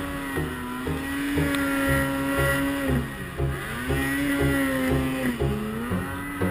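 Snowmobile engine running hard at high revs while ploughing through powder, its pitch dipping briefly twice as the throttle is eased and picking up again. A steady low beat, from background music, runs underneath.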